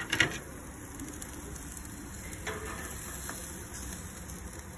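Food sizzling steadily on a grill, with a thick steak and foil-wrapped potatoes and corn over the heat. A short knock right at the start.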